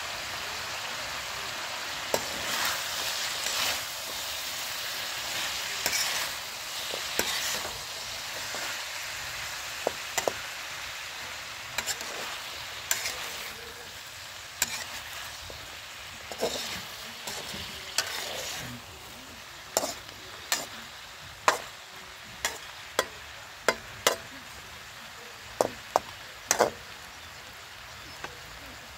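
Cabbage, onion and pork sizzling in a steel wok while a metal spatula stirs and tosses them, with sharp clicks and scrapes of the spatula against the wok. The sizzle fades after about two-thirds of the way through, leaving mostly the quick clinks of the spatula.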